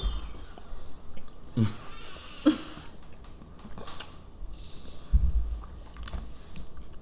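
People chewing burgers close to the microphone: scattered wet mouth clicks and smacks, with a couple of brief low hums about a second and a half and two and a half seconds in, and a low thump about five seconds in.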